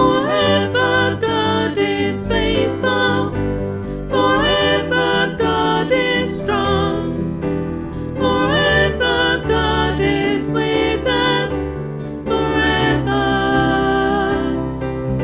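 A contemporary worship song playing, with singing over instrumental backing.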